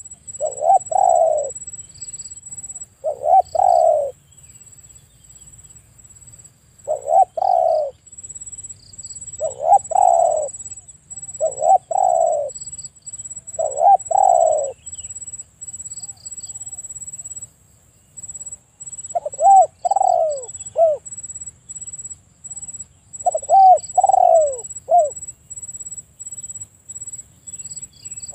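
Spotted dove cooing: repeated phrases of two or three notes, each note falling in pitch, with a pause of a few seconds past the middle.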